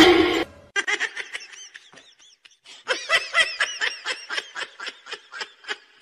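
A person laughing in a run of short, high-pitched bursts, about three to four a second, fading out near the end. A loud noisy burst comes right at the start.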